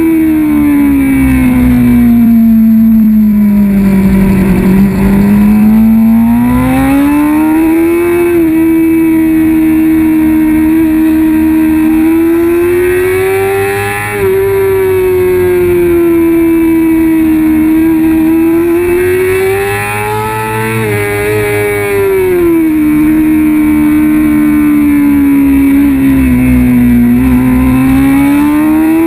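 Kawasaki ZX-6R 636 inline-four engine revving high on a race track, heard from on board. The revs sink slowly over the first few seconds, climb again and hold high, with brief drops about a third of the way in, around two thirds and near the end as the throttle is rolled off and picked up again.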